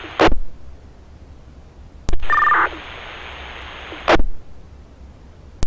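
Two-way radio channel hiss between transmissions, broken by four short squelch bursts as radios key and unkey: just after the start, at about two seconds, at about four seconds, and at the end. Just after two seconds a brief two-tone data burp sounds as a radio keys up.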